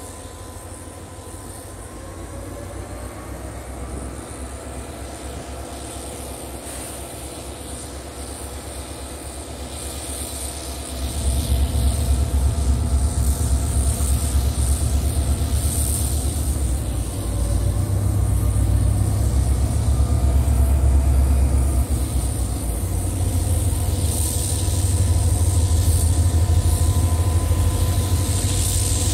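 Diesel switcher locomotive's engine running as it slowly pulls a string of cars closer, a low rumble that grows steadily. About eleven seconds in the rumble jumps sharply louder and stays loud as the engine works harder.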